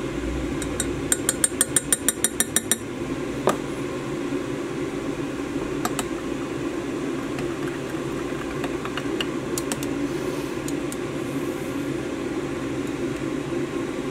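A measuring spoon tapped quickly against a glass Pyrex measuring cup, about a dozen sharp clinks in under two seconds, shaking pearl powder into liquid plastisol. A stirring tool then clinks against the glass now and then as the powder is stirred in, over a steady fan hum.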